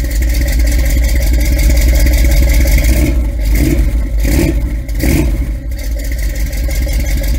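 A car engine running loudly and steadily, with three brief surges of revving about halfway through.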